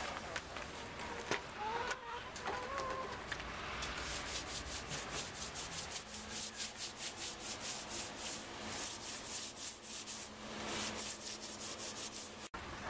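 Repeated scraping strokes, about four a second and most regular in the second half: a chicken coop being scraped clean.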